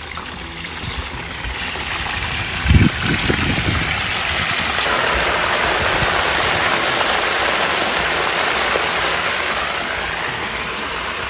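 Chicken pieces frying in hot oil in a disco plow-disc pan: a loud, steady sizzle that swells after a thump about three seconds in, as a fresh batch goes into the oil.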